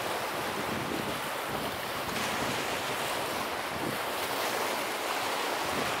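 Small Lake Michigan waves breaking and washing up a sandy beach in a steady, continuous wash, a little fuller from about two seconds in. Wind buffets the microphone.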